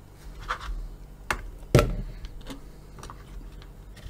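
A few sharp knocks and lighter taps from cut zucchini cubes being gathered on a plastic cutting board and tossed into a plastic mixing bowl. The loudest knock comes a little under two seconds in.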